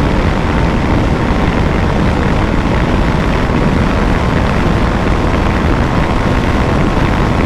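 KTM 390 Adventure's single-cylinder engine running steadily flat out in fifth gear near its top speed of about 160 km/h, buried in heavy wind rush on the microphone.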